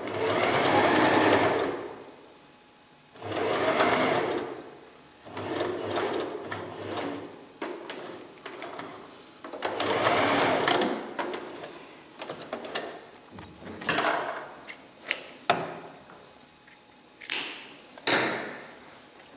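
Electric domestic sewing machine stitching in four runs of one to two seconds in the first half, stopping between runs as the fabric is guided through. Later come a few shorter bursts and several sharp clicks.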